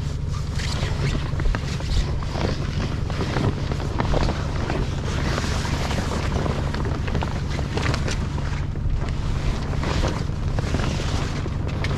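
Wind buffeting the microphone over the steady low hum of a sailboat's auxiliary engine idling.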